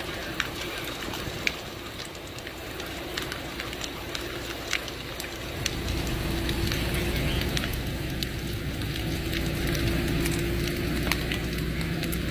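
Building fire burning, with sharp cracks and pops over a steady hiss. About six seconds in, a steady low engine drone from the fire apparatus grows louder underneath.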